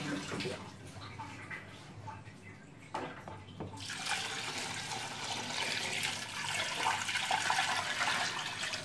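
Water poured from a bowl into a steel pot of fried rice, a steady splashing pour that starts about four seconds in and lasts until near the end.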